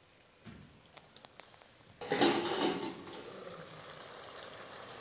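Curry simmering in a steel pot over a wood fire, a steady bubbling hiss, with a few faint ticks early and a brief loud burst of noise about two seconds in.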